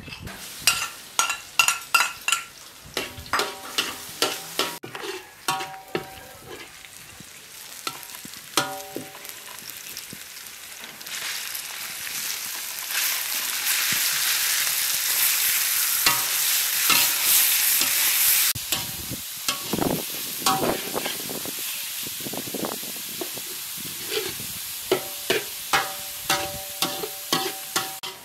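A metal spoon clanking and scraping against a steel wok while garlic, ground pork and shrimp are stirred. The food sizzles in hot oil, loudest for several seconds in the middle, and is then stirred again with rapid clanks.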